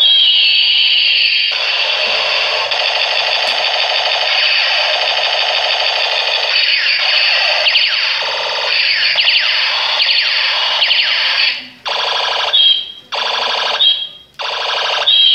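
Toy gun's electronic sound effect: a harsh, loud buzzing siren-like tone with repeated falling sweeps, broken into three short bursts near the end before it starts again.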